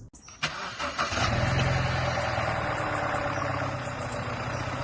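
BMW E90 320i's four-cylinder petrol engine cranking and starting, catching about a second in, then settling into a steady idle. The idle is much smoother with a new rocker cover gasket and fresh oil.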